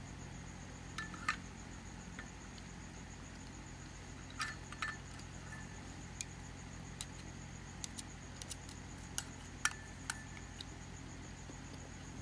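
Chopsticks and tableware clinking: a dozen or so short, sharp clicks and light clinks against bowls and plates, in scattered clusters. Underneath, crickets keep up a steady high trill and there is a low hum.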